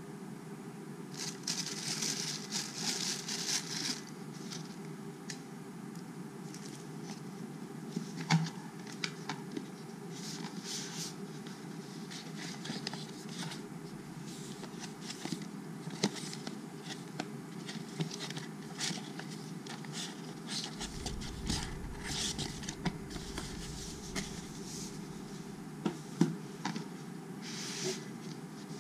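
Camera packaging being handled: a burst of crinkling plastic wrap near the start, then cardboard box parts and a card folder rustling, sliding and tapping in short scattered knocks and scrapes, over a steady low background hum.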